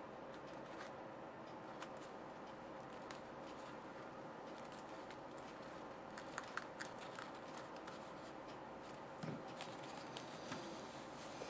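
Aluminium foil crinkling, with small clicks and crackles as a foil-wrapped model is handled and pressed. The crackles bunch up a little past the middle and again near the end, over a steady faint hum.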